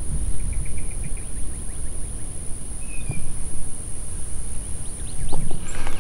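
Wind rumbling and buffeting on the microphone, over a steady thin high-pitched insect drone. A few sharp knocks near the end.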